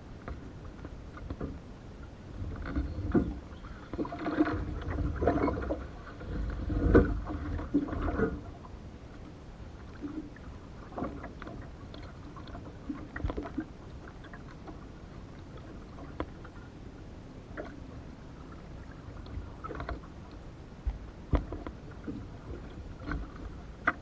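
A canoe being paddled through calm water: paddle strokes and drips, and scattered knocks on the hull, busiest and loudest from about four to eight seconds in.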